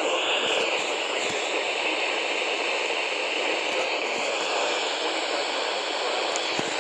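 Steady hiss of radio static from a receiver, with a few faint clicks.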